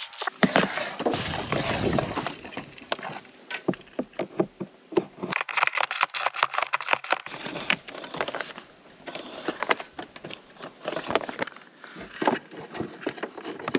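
Scattered clicks, taps and rustles of red and black solar cables being handled and fed through a plastic roof cable-entry housing. There are two brief rushes of noise, one at the very start and one about six seconds in.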